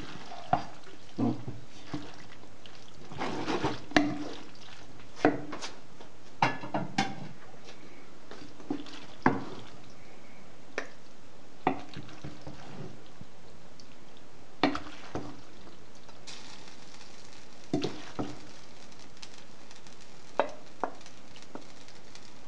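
Wooden spoon stirring and scooping pasta in a frying pan and serving it onto a ceramic plate: irregular knocks and scrapes of the spoon against the pan and plate, a dozen or more scattered through.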